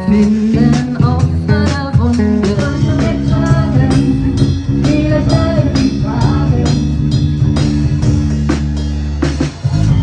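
A band playing a song: a drum kit beat, a bass line and plucked strings, with a sung melody over them.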